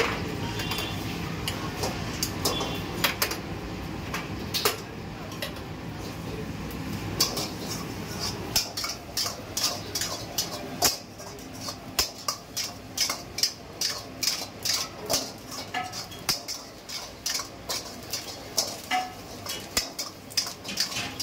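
Metal utensils clanking and scraping against a steel wok as vegetables are stir-fried, over a steady low rush. In the second half the strikes come quickly and regularly, two or three a second.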